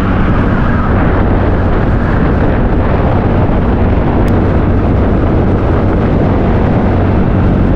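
Wind rushing over a helmet-mounted action camera on a TVS NTorq Race XP scooter cruising at about 56 km/h, loud and steady, with the scooter's single-cylinder engine humming underneath at an even speed.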